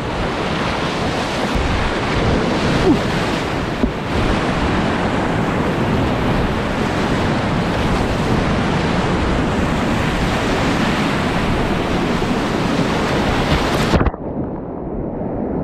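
Loud, steady rush of big-water whitewater rapids at about 8,000 cfs, with wind buffeting the microphone. Near the end the sound turns suddenly dull and muffled as a wave washes over the camera.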